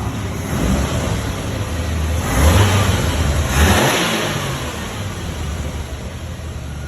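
1990 Jeep YJ engine running, revved up twice about two and a half and three and a half seconds in, then settling back to a steady run.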